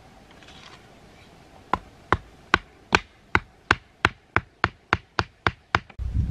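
A run of about a dozen sharp knocks, like a hand tool striking something hard, starting a little under two seconds in and quickening from about two and a half to nearly four a second.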